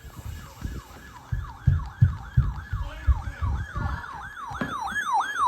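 Electronic siren sweeping rapidly up and down, about three cycles a second, quickening and getting louder near the end, over uneven heavy low thumps.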